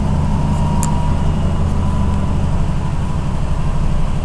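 Carbureted V8 engine of a 1990 Cadillac running steadily at idle, moments after catching on a hard cold start. It is still cold and running on its automatic choke.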